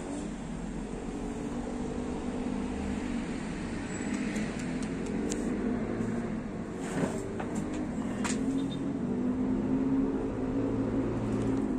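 Urban traffic noise: road vehicle engines running as a steady, wavering hum, with a few sharp clicks in the middle.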